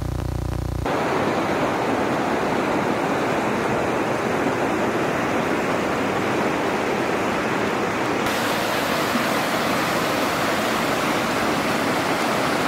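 Rocky mountain river rushing over boulders in white-water rapids, a steady loud hiss of water. Music cuts off about a second in, and the water turns brighter and hissier about eight seconds in.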